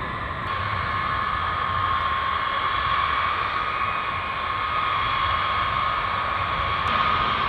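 B-52H Stratofortress's eight TF33 turbofan engines at taxi power: a steady high whine over a rushing hiss, which grows a little louder about half a second in.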